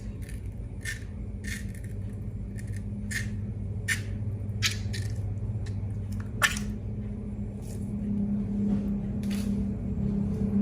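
Crisp short snips and squishes, roughly one a second and unevenly spaced, from hands working balloons and slime, over a steady low hum.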